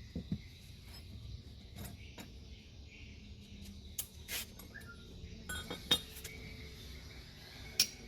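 Scattered light metallic clinks and taps of tools and small parts being handled, about a dozen, the sharpest about six seconds in and another near the end.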